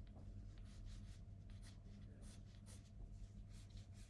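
Faint scratching of a pencil sketching light construction lines on paper, a series of short strokes.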